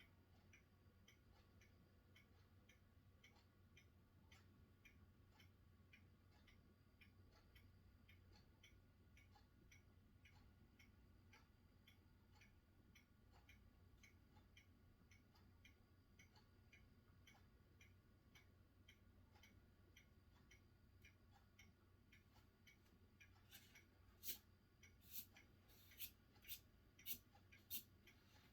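Faint, steady ticking, a few ticks a second, over quiet room tone; near the end comes a run of about seven louder, sharper clicks, roughly two a second.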